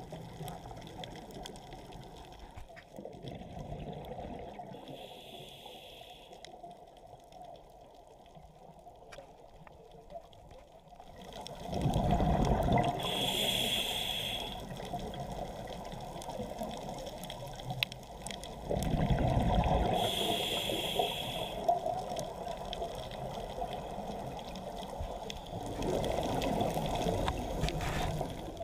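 Scuba diver breathing through a regulator underwater, with three loud bursts of exhaled bubbles about seven seconds apart and a low rush of water between them.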